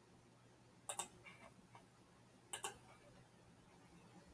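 Two computer mouse button clicks, each a quick double tick of press and release, about a second and a half apart, over faint room tone.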